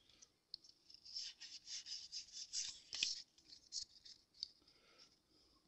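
Pokémon trading cards sliding against one another as a stack from a freshly opened pack is worked through by hand: a quick run of soft rasping swipes, with one sharper click about three seconds in.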